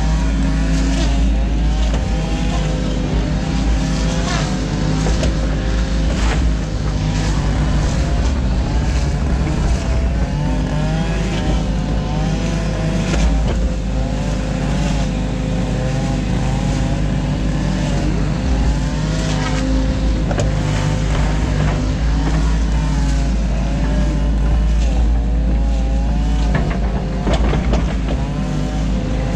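New Holland Kobelco E 50.2 mini excavator's diesel engine running steadily under load, its hydraulics whining with a pitch that wavers up and down as the boom and bucket move. Scattered short knocks and scrapes as the bucket digs wet silt out of the ditch.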